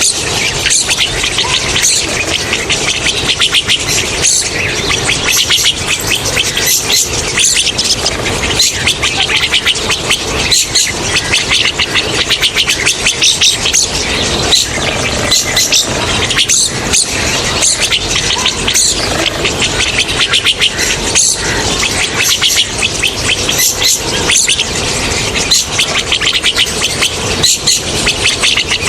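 Rosy starlings calling: a dense, unbroken chatter of rapid high-pitched notes.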